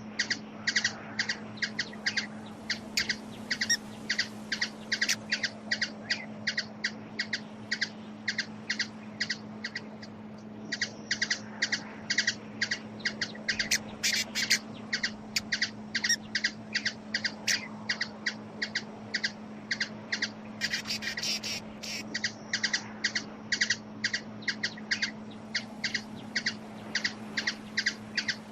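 Hummingbird giving a long series of short, high chip calls, about three a second, pausing briefly partway through. A steady low hum runs underneath.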